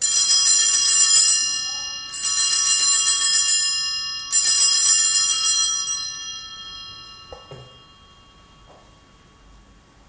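Altar bells (a cluster of small hand bells) shaken in three rings about two seconds apart, the last one ringing on and fading away. They are rung as the chalice is elevated at the consecration.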